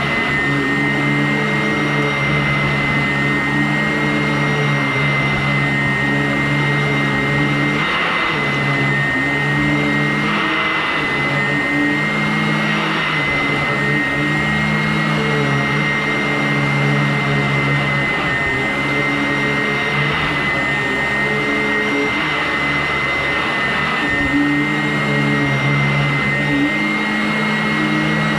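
Vacuum cleaner running steadily, a high motor whine over a low hum, its tone wavering briefly a few times.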